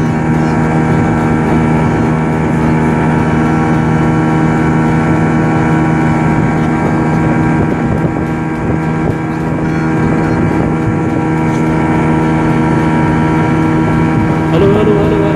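Speedboat outboard motor running steadily at speed while towing a banana boat, an even engine hum over the rush of water, with wind on the microphone.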